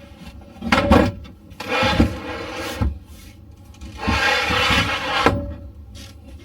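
Knocks and scraping, rubbing sounds of a campervan's table boards and seat cushions being handled to make up the bed. There are a few sharp knocks in the first three seconds and two longer stretches of scraping, the second from about four to five seconds in.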